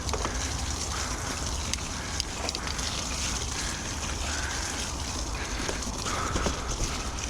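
Carrera Vengeance mountain bike being ridden, with wind rumbling on the microphone and scattered clicks and rattles from the ride. The rider breathes hard in a steady rhythm, about one breath every second and a half.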